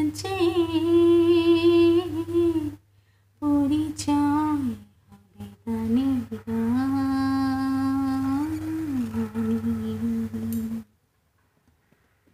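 A woman humming the closing phrases of a Bengali song unaccompanied, with long held notes in three phrases separated by short pauses. The humming stops about eleven seconds in.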